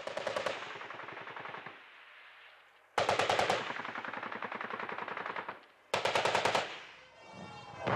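Three bursts of rapid automatic gunfire, about three seconds apart, each rattling off many shots in quick succession and trailing away in an echo.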